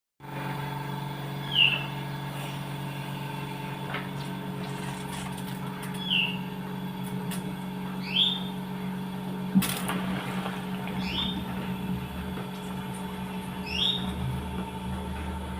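A steady low mechanical hum, with a short high chirp about every two to three seconds, five in all, and one sharp click about ten seconds in.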